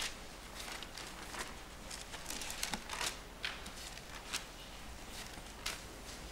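Bible pages being turned and rustled: a string of soft, irregular papery crackles, busiest around the middle, over a faint steady hum.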